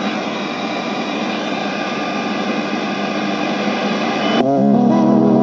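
Sansui CP-55W boombox's FM radio giving a steady static hiss while being tuned between stations. About four and a half seconds in, a station locks in and music plays through its speaker.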